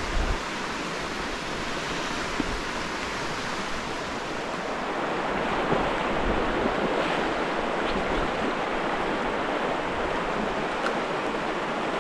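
Shallow, clear trout river rushing steadily over stones and weed in a riffle close by, with a soft low knock right at the start.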